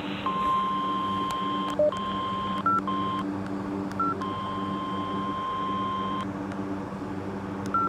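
NOAA Weather Radio warning alarm tone, a steady single tone near 1 kHz over a low hum. It is broken a few times by brief gaps with short higher blips and clicks. The tone signals that a warning is about to be read and sets off alert receivers.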